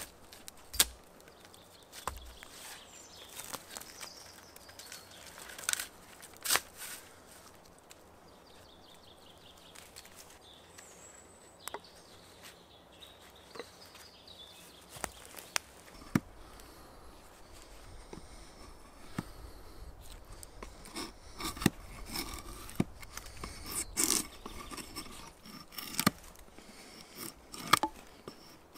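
Scattered sharp knocks and clicks of wooden pieces being handled, sparse at first and coming thicker and louder in the second half.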